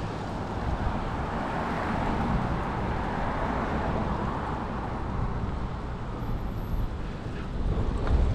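Street traffic noise heard from a moving bicycle, with wind rumbling on the microphone; a vehicle's sound swells and fades in the middle.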